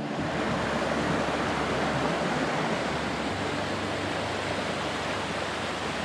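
Virgin River water rushing steadily over rocks, a loud even roar of flowing water.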